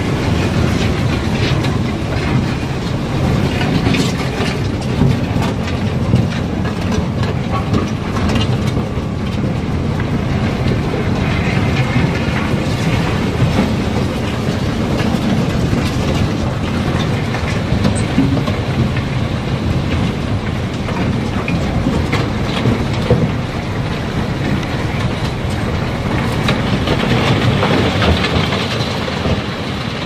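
A long-handled metal rake scraping across the barge deck and rock and iron ore clattering as it is dragged and pushed off, with many small clicks over a steady low rumble.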